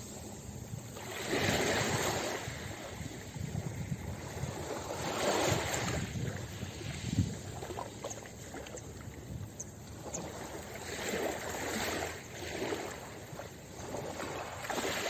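Small sea waves washing onto a pebble beach, each wash swelling into a rush and drawing back every few seconds over a steady hiss of surf.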